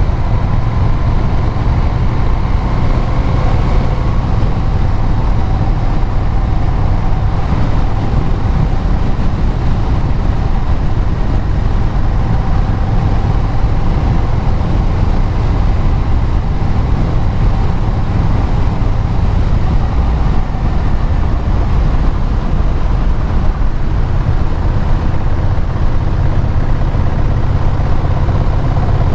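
Vehicle engine and road noise while riding at a steady pace: a loud, even low drone with a faint steady whine above it.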